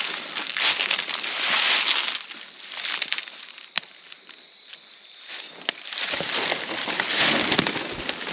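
Footsteps crunching through dry leaf litter, with palmetto fronds rustling and scraping past, in uneven bursts. A single sharp click comes near the middle.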